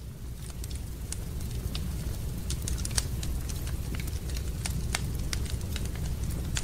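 Fire burning in a fireplace and crackling: irregular sharp pops and snaps over a steady low rumble.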